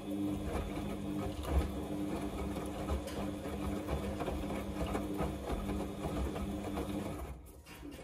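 Samsung front-loading washing machine turning its drum during a wash, the motor humming steadily under repeated low thumps of the wet load tumbling. The motor winds down and the drum stops near the end, a pause in the wash cycle's tumbling.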